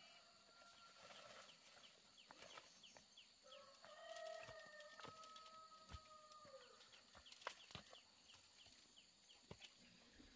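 A faint rooster crowing: one long call starting about three and a half seconds in, held for about three seconds and dropping at its end. Under it, a fainter run of short high chirps repeats about three times a second.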